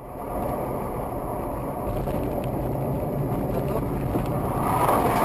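Steady road noise of a car at highway speed, heard from inside the cabin: tyre and wind noise with the engine underneath, growing a little louder near the end.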